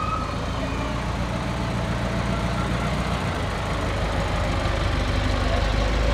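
Box truck's engine running as it rolls slowly past at close range, a steady low drone that grows a little louder in the second half.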